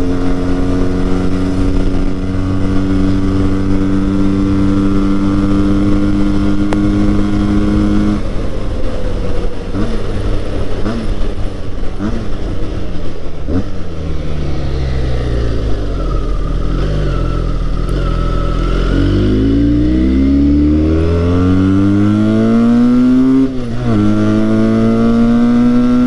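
Benelli 302R's 300 cc parallel-twin engine, heard from the bike on the move. It holds a steady note, then the pitch falls for several seconds as the bike slows off the throttle, then climbs steeply as it accelerates, with a brief break about three-quarters of the way through as it shifts up.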